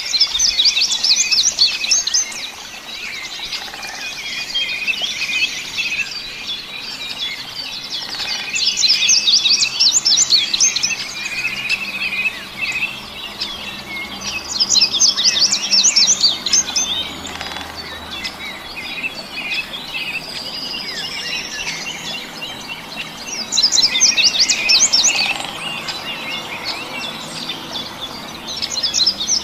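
A songbird singing in bouts of rapid trilled phrases, each lasting about two to three seconds and recurring every six to eight seconds. Softer chirping from other birds fills the gaps, and a single rising whistle comes a little past the middle.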